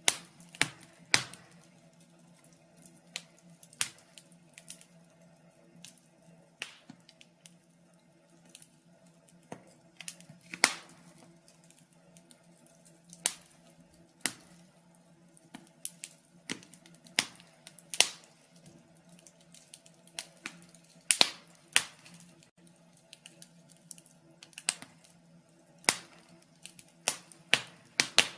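Wood fire in a fireplace crackling: irregular sharp pops and snaps, one or two a second with a few louder ones, over a faint steady low background.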